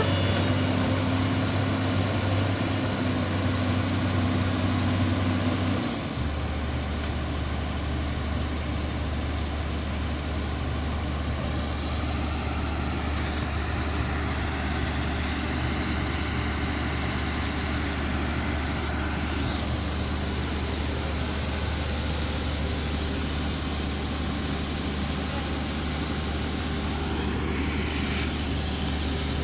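Heavy diesel engine running steadily, dropping to a lower engine speed about six seconds in and holding there.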